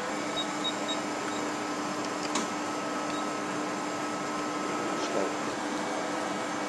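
Okuma LB 200-6 CNC lathe running: a steady mechanical hum with a steady tone through it, and two short clicks, about two and a half and five seconds in.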